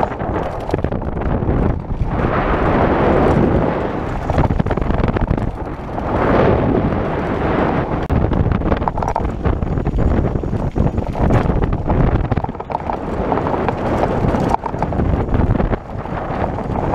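Wind buffeting an action camera's microphone during a fast mountain bike descent, over the rumble of tyres on a rough dirt trail and the quick rattles and knocks of the bike over bumps.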